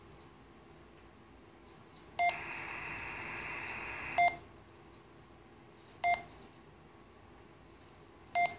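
Front-panel key beeps from a Motorola Micom HF radio: four short, identical beeps as its soft keys are pressed. Between the first two beeps comes about two seconds of steady receiver hiss that cuts off with the second beep.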